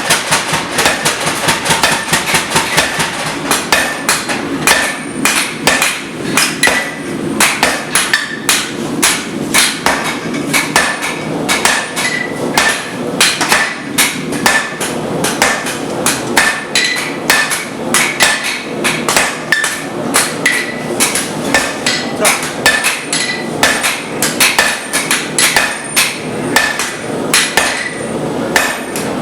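Blacksmith's hammer striking metal on the anvil, in steady blows about two to three a second, each with a short metallic ring.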